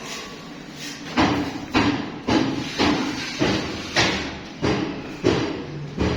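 Steady series of heavy knocks, a little under two a second, beginning about a second in.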